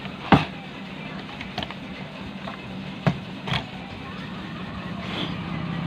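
A few sharp clicks and taps of multimeter probe tips against transistor legs on an amplifier board, the loudest about a third of a second in, over a steady low hum that grows a little louder near the end.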